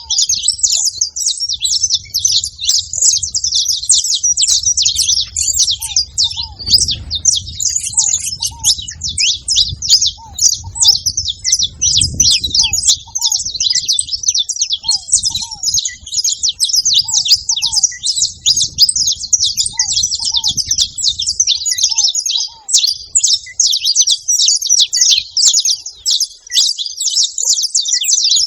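A flock of saffron finches chirping and chattering together in a dense, continuous mass of high chirps. Fainter short falling notes repeat underneath, and a low rumble fades out about three-quarters of the way through.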